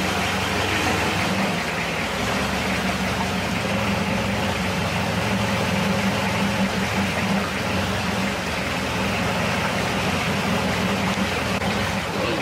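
Motorboat engine running steadily, a low even drone with a steady rushing noise over it.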